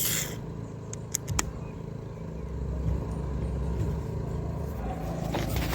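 A bottle or can of Budvar beer being opened: a short hiss of escaping gas right at the start, followed by a few small clicks about a second in, over a steady low rumble.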